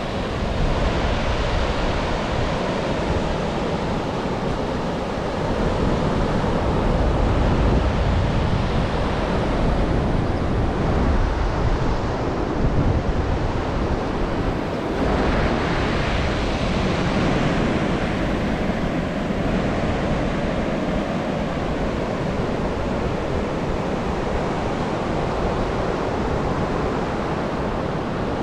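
Ocean surf washing onto a beach, a steady rushing noise that swells louder around the middle, with wind rumbling on the microphone.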